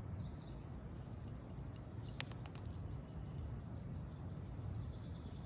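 Outdoor background noise: a steady low rumble, with one short sharp click about two seconds in.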